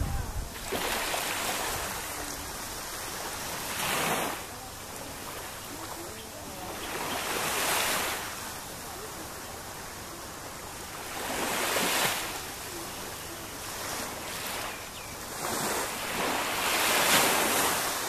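Small sea waves washing onto the shore, each wash swelling into a hiss and fading, every three to five seconds.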